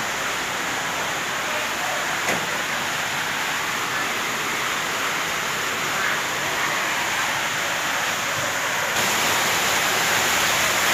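Steady rushing background noise that grows slightly louder near the end, with a single faint click about two seconds in.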